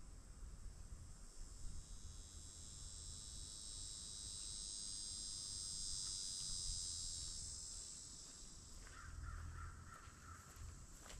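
Crows cawing, with a steady high buzz that swells and then fades.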